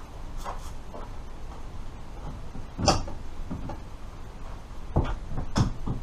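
Shed doors being opened: a few knocks and wooden clatters, the loudest about three seconds in and two more near the end.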